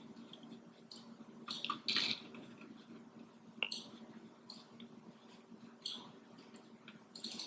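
Quiet room with a steady low hum and a few faint, brief ticks and soft scrapes of a small paintbrush working on watercolor paper.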